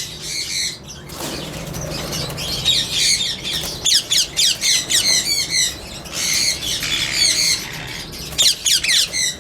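Ringneck parakeets (rose-ringed parakeets) in breeding cages calling: bursts of harsh, rapidly repeated squawks starting about two seconds in.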